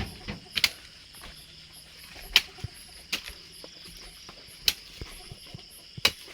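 Crickets chirring steadily, broken by about half a dozen sharp knocks or clicks at irregular intervals.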